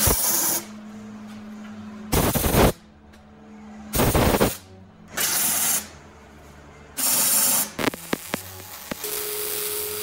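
MIG welder striking short tack welds on square steel tubing: five separate bursts of arc noise, each about half a second to a second long, a second or two apart, followed by a few sharp clicks.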